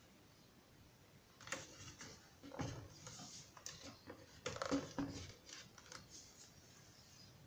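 A run of irregular clicks and knocks from hard objects being handled, lasting about four and a half seconds; the loudest comes about three seconds in.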